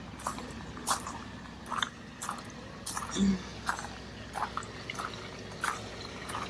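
Footsteps on a garden path, a step roughly every half second to second.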